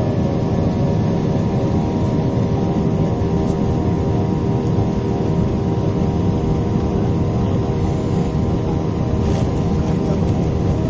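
Airliner engines heard from inside the passenger cabin: a steady, loud rumble with several steady humming tones over it. The pitch holds level throughout.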